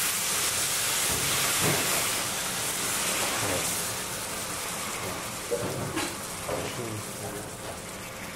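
Tomato sauce sizzling hard as it is poured into a pan of hot olive oil, garlic and chilli, a loud hiss that eases slowly over the second half. A single sharp click about six seconds in.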